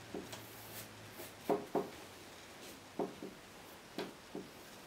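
Paintbrush dabbing acrylic paint onto a stretched canvas: short soft taps, mostly in pairs, every second or so.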